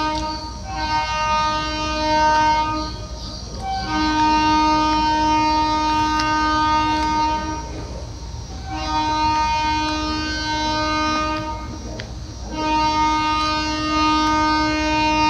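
A train horn blown again and again in long steady blasts of one pitch, the longest nearly four seconds, over a low rumble.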